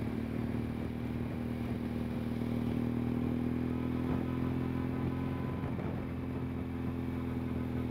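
Motorcycle engine running at a steady, even speed, heard from on board the camera motorbike riding ahead of a group of road cyclists.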